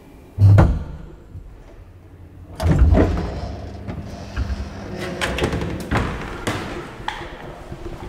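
Old elevator's car and door mechanism: a single heavy thump about half a second in, then about two and a half seconds in the car door slides open, followed by a ragged run of clicks and knocks from the door and its latches.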